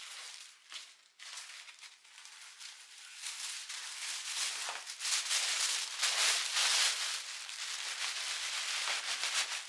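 Tissue paper crinkling and rustling as sheets are handled and tucked into a gift bag, growing louder about halfway through.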